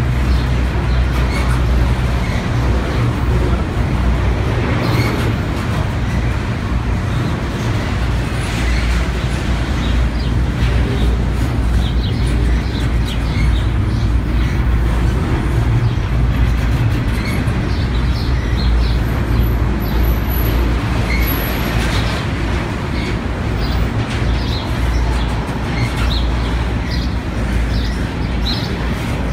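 Double-stack intermodal freight train rolling past close by: a steady rumble and clatter of steel wheels on rail from the loaded well cars, with brief high squeaks and clicks scattered through it.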